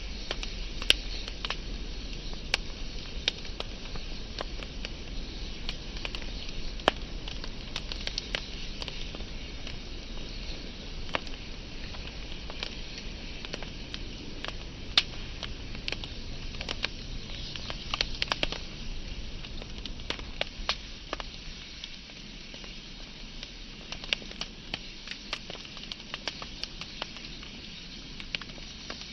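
Wood fire burning, with steady crackling and frequent sharp pops of burning wood, a few louder pops standing out.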